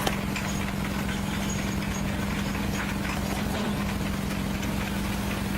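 Engine of a construction machine running steadily, a constant hum with low rumble and a few light clicks and knocks.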